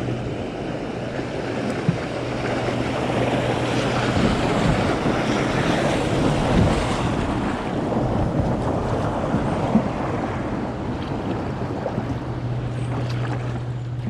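Big tugboat wake waves splashing against a kayak's bow and hull and washing onto the riverbank, with wind buffeting the microphone; the rush of water is loudest in the middle. A low steady hum sits under it at the start and again near the end.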